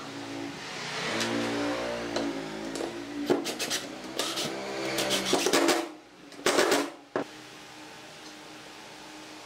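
Cordless impact driver driving screws into a wooden chair frame: the motor whirs while the hammer mechanism rattles in bursts over several seconds, with one last short burst about seven seconds in, followed by steady low room hum.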